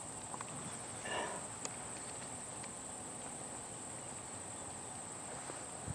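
Steady high-pitched insect chirring, with a brief faint sound about a second in and a small click shortly after.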